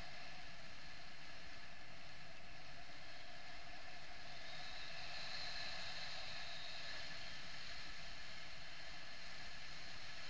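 Steady rush of air over a harness-mounted camera in paraglider flight, with faint steady whistling tones in the wind noise; the highest grows a little stronger about halfway through.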